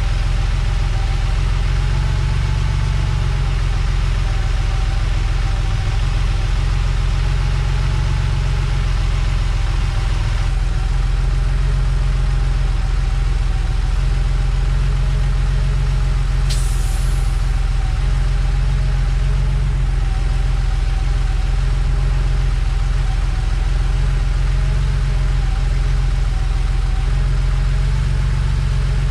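1987 Porsche 911 Carrera's air-cooled flat-six idling steadily, with a steady whine over it, while its air-conditioning system runs during an R12 recharge. A single brief click about halfway through.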